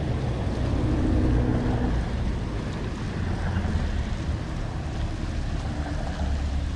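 Wind rumbling on the microphone, with the hum of a motor that fades out about two seconds in.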